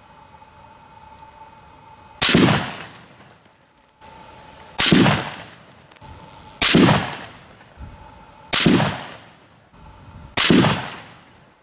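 Five rifle shots from a Howa HLR bolt-action rifle in 6.5 Creedmoor, fired as a five-shot group about two seconds apart. Each is a sharp crack followed by a short fading echo.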